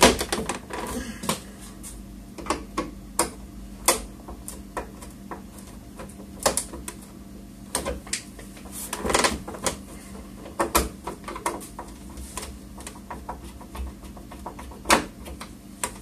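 Plastic rear cover of an HP TouchSmart 320 all-in-one PC pressed down by hand, its clips snapping into place in a scattered series of sharp clicks.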